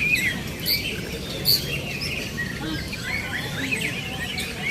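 Many caged songbirds singing together: a dense mix of quick chirps and twittering whistles, with a few sharp high notes standing out about a second and a half in.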